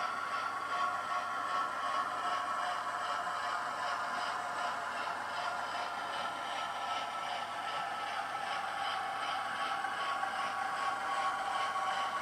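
Model Hornby class 08 diesel shunter running on track, its TTS sound decoder playing a diesel engine sound through the small onboard speaker: a steady engine tone with a regular beat of about two to three a second, over faint wheel-on-rail rattle.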